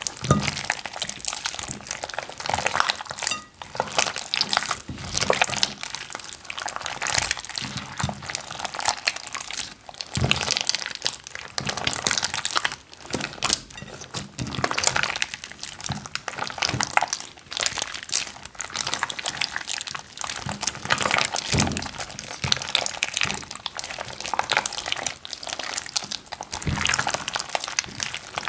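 Wet slime squelching and popping while plastic bags crinkle, in dense irregular crackles with occasional deeper squishes.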